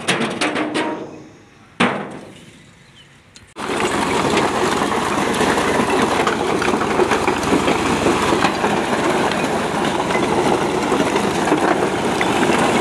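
A few sharp knocks in the first two seconds. Then, starting suddenly about three and a half seconds in, a brick-laden vehicle is heard loud and steady: its engine running under a constant clatter.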